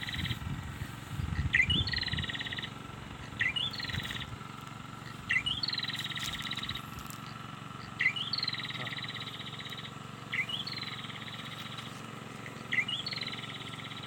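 A prinia (prenjak) calling over and over, six times: each call a short rising note followed by a buzzy, rapid trill, repeating about every two seconds.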